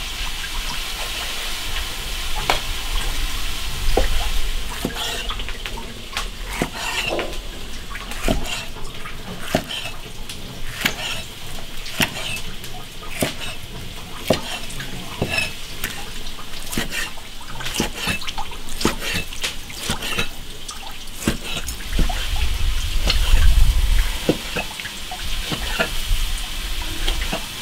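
Kitchen knife slicing part-cooked fatty pork into small pieces on a cutting board: irregular knocks of the blade meeting the board, one or two a second, over a steady hiss like running water.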